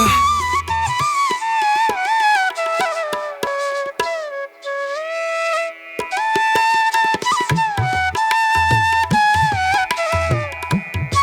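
Background music: a flute playing a sliding melody over tabla drums, in an Indian classical style. The drums drop out for a couple of seconds in the middle while the flute holds one long note.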